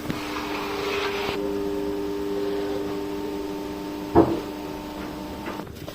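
A steady mechanical hum, with a short knock about four seconds in.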